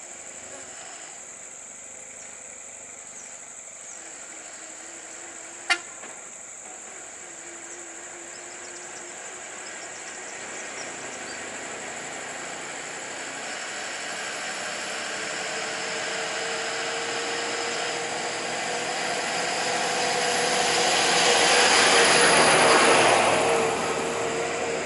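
A road vehicle's running noise slowly builds up with a steady tone, is loudest a few seconds before the end, then drops away, over a steady high drone of insects. There is a single sharp click about six seconds in.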